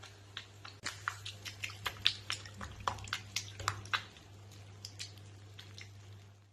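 An irregular run of small, sharp clicks and ticks, several a second, thickest through the middle and thinning out after about four seconds, over a faint steady low hum.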